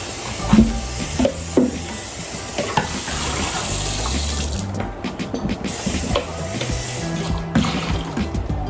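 Tap water running into a sink for about four and a half seconds, then shutting off, with a few light knocks of bowls or utensils.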